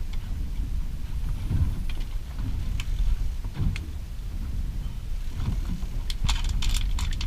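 Wind buffeting the boat-mounted camera's microphone, an uneven low rumble, with a few scattered clicks and a quick run of clicks near the end.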